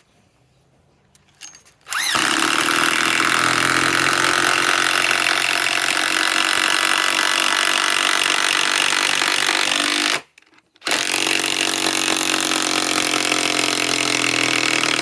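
DeWalt DCF891 mid-torque cordless impact wrench, on a 1.7 Ah PowerStack battery, hammering steadily as it runs a 10-inch lag screw. It starts about two seconds in, runs for about eight seconds, stops briefly, then starts again and keeps going.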